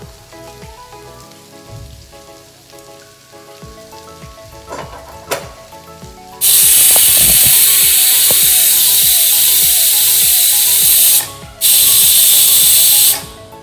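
Pressure cooker letting off steam in a loud, steady hiss for about seven seconds, breaking off for a moment near the end and then starting again; the cooker has come up to pressure. A couple of light utensil knocks come before it.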